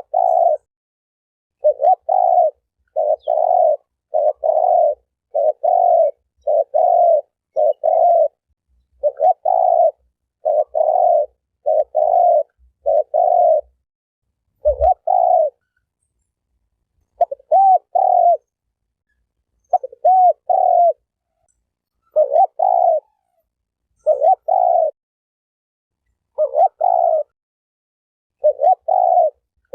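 Spotted dove (tekukur) cooing: a long run of short, pitched coos, about one a second, with a brief pause about halfway through.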